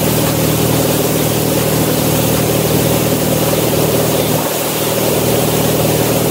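Towing boat's engine running steadily, an even drone, over the hiss of the churning wake.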